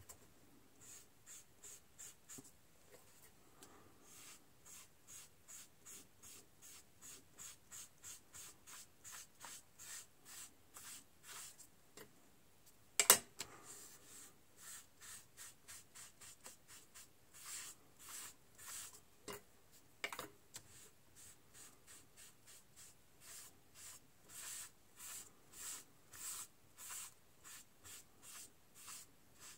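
Faint rubbing of a sponge applicator working pan pastel onto cardstock in quick back-and-forth strokes, about two a second. A sharp click sounds about 13 seconds in, and a smaller one about 20 seconds in.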